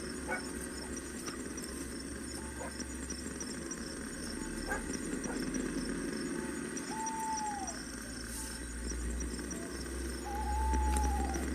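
Campfire ambience at night: a few sharp crackles from the fire, a steady high insect trill, and two drawn-out arching animal calls, one past the middle and one near the end.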